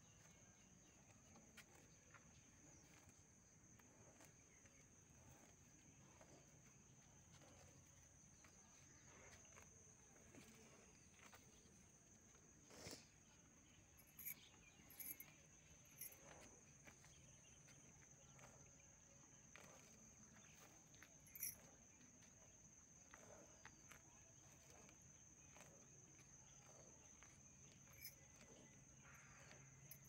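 Near silence with a faint, steady, high-pitched insect trill, such as crickets, and a faint low hum underneath. A few soft clicks come in the middle.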